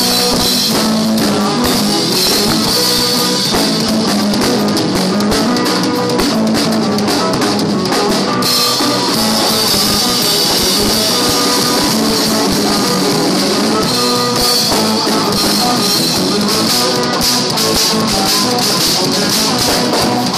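A rock band playing live at a steady loud level, with a drum kit prominent and guitar.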